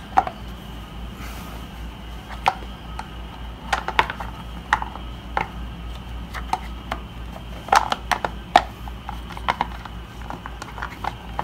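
Hard plastic dust cover clicking and tapping against a gaming chair's metal recline bracket as it is pressed and shifted, irregular sharp clicks from a cover that will not snap into place. A steady low hum runs underneath.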